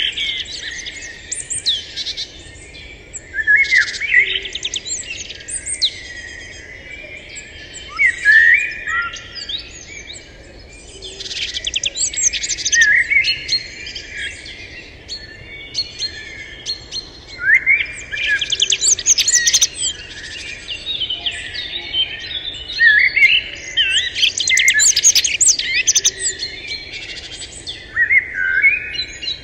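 Several birds chirping and singing together: quick high notes and rising and falling whistles that swell into busy clusters every few seconds and then thin out.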